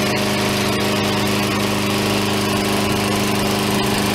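Troy-Bilt XP 21-inch mower's 7.75 hp Briggs & Stratton OHV engine running at a steady speed.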